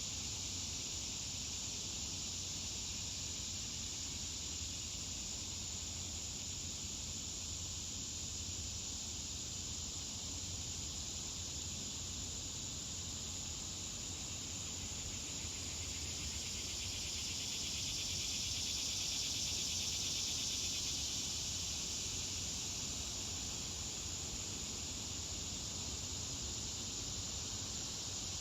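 A steady, high chorus of insects such as crickets, with a low hum beneath it; the chorus grows a little louder about two-thirds of the way through.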